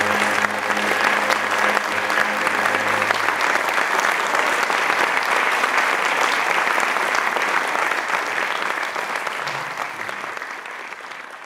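Opera-house audience applauding. For the first three seconds a low note from the orchestra is held under the clapping, then it stops. The applause carries on and fades out near the end.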